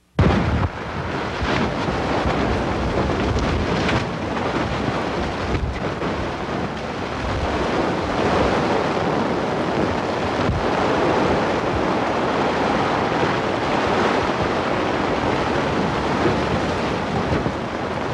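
Strong wind rushing over the microphone while a large plastic tarp flaps and rustles, with a few sharper snaps, cutting in suddenly from silence.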